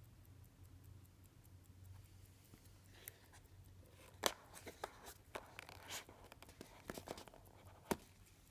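Fingers handling a wristwatch on its box cushion: rustling and scraping with sharp clicks, the loudest about four seconds in and again near the end. Before that, the faint, fast ticking of the watch's mechanical movement, about five ticks a second, fades out within the first second.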